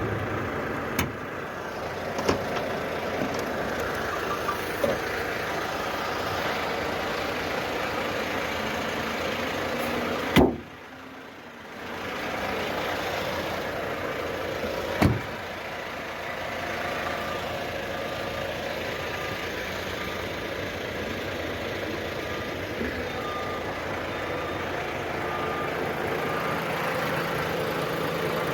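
Heavy Volvo machine working, its diesel engine running steadily, with several sharp clanks and a faint reversing alarm beeping at an even pace in the second half.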